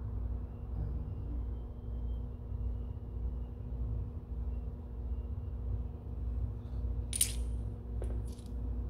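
Steel transmission gears and shafts of a Peerless 2300 transaxle clinking as they are handled: one sharp metallic clink about seven seconds in, then a couple of lighter taps. A steady low hum runs underneath.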